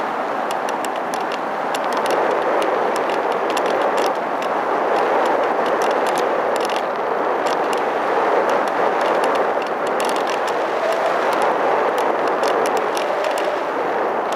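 Steady rush of airflow and motor noise picked up by a camera riding on a flying RC model plane, sprinkled with light crackling ticks.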